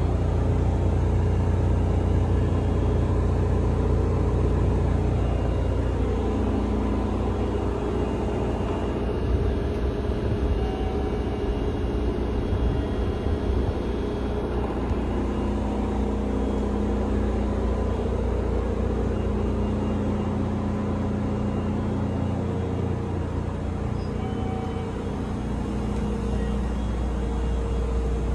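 Steady low hum and whir inside a Kintetsu 7020 series electric train car standing in the station, from the car's ventilation and onboard equipment running.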